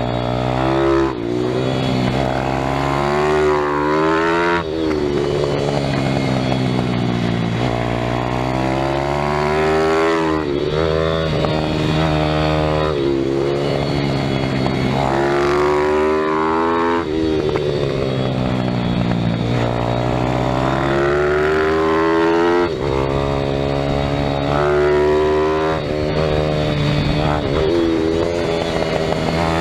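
Onboard sound of a pitbike's small single-cylinder engine at track pace, its revs climbing and falling again and again, with a sudden break in pitch every few seconds as the rider lifts off or shifts between corners.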